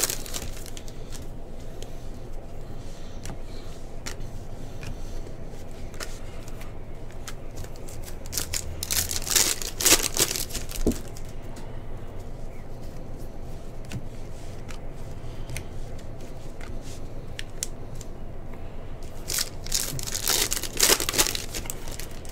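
Foil wrapper of a 2022 Bowman Baseball card pack crinkling as it is pulled open and handled. Louder bursts of crinkling come about nine seconds in and again near the end, over a faint steady hum.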